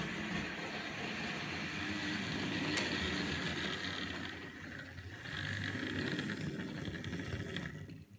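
Tri-ang R.153 saddle tank model locomotive running with its electric motor whirring and wheels clattering over the track as it hauls small goods wagons, with one sharp click about three seconds in. The running noise stops suddenly near the end as the train halts.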